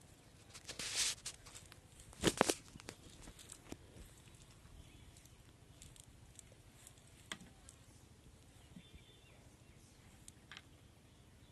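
Rustling and crackling as a cast net is handled and gathered over a bucket, loudest in two bursts about one and two and a half seconds in, then only a few faint ticks.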